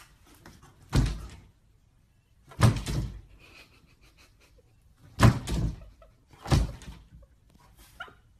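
Closed interior door thumping in its frame four times as a French bulldog puppy butts and shoves its head against it, with a fainter knock near the end.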